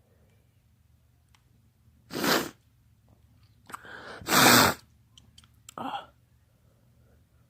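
A man sneezing from pollen allergy: one sneeze about two seconds in, a quick in-breath, then a louder sneeze about four and a half seconds in, and a shorter burst near the six-second mark.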